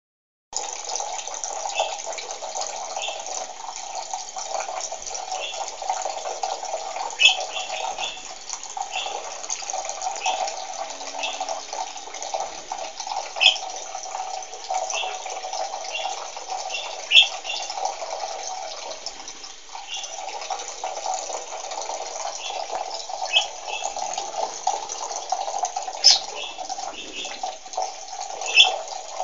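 Water running steadily from a bathroom sink tap, with short high chirps from a budgerigar every second or two.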